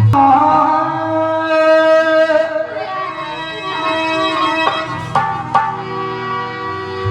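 Instrumental music of a Hindi devotional bhajan: a sustained melody of held notes, with a few sharp drum strokes a little past the middle.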